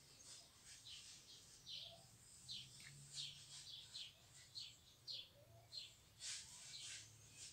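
Faint bird chirping, short high notes repeating about once a second.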